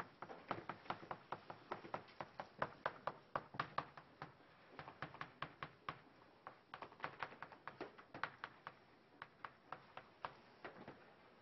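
Chalk tapping on a chalkboard as Chinese characters are written stroke by stroke: quick runs of sharp taps broken by short pauses.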